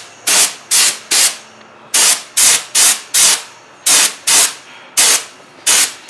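Compressed-air spray gun spraying primer in short hissing bursts, two to four in quick succession, then a brief pause before the next group.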